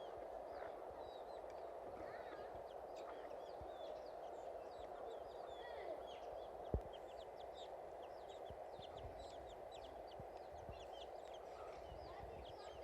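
Many small birds chirping in short, quick calls over a steady background noise, with a single sharp click about seven seconds in.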